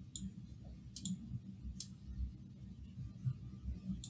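A few faint, sharp clicks from a computer mouse being handled, a quick pair about a second in, over a low rumble.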